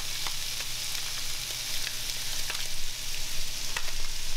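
Mangrove snapper fillets frying in oil in a frying pan, nearly done after about six minutes on the heat. It is a steady sizzling hiss with scattered small pops and crackles.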